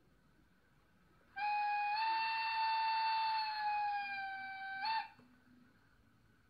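Long steam-locomotive whistle played by the ESU LokSound V4.0 sound decoder in a Märklin H0 BR 81 model locomotive: one held note of about three and a half seconds that rises slightly at first, sags a little toward the end and cuts off.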